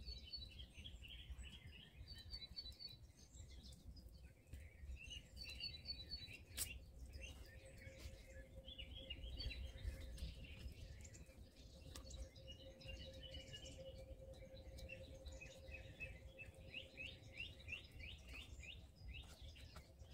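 Several songbirds singing in woodland: repeated high chirps and short trills, with a few faint knocks of wood being handled.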